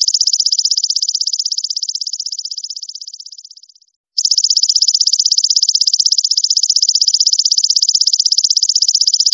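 Belalang emas katydid stridulating: a loud, high-pitched, rapidly pulsing buzzing trill. It fades away a little under four seconds in, breaks off briefly, then starts again and runs on steadily.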